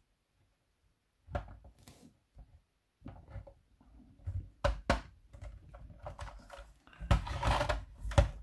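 Hard plastic toy parts clicking and knocking as Playmobil wheels are pressed onto a toy car's axles: scattered clicks, two sharp knocks about halfway, and a louder stretch of handling near the end.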